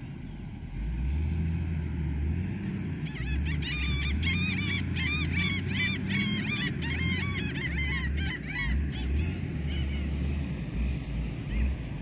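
Wind rumbling on the microphone, with a flock of birds calling in a rapid, chattering run of chirps from about three seconds in until about nine seconds in.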